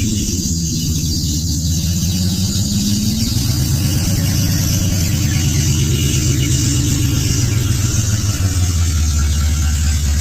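Vehicle engine running under load, a deep steady drone whose pitch climbs over the first three seconds and then holds.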